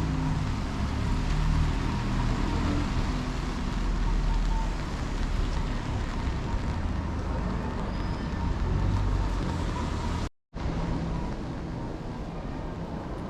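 Street traffic: a steady low vehicle rumble with a haze of road noise. The sound cuts out for an instant about ten seconds in and comes back somewhat quieter.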